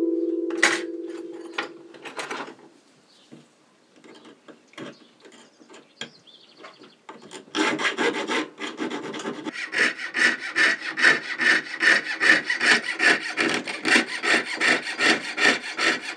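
Jeweller's saw cutting through silver sheet held on a wooden bench pin, in quick, even back-and-forth strokes, about three a second. The sawing starts about halfway through, after a few faint taps and clicks at the bench.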